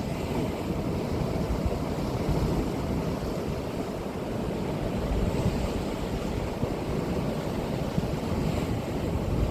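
Sea surf breaking and washing up the shore in slow swells every few seconds, over a steady low rumble of wind on the microphone.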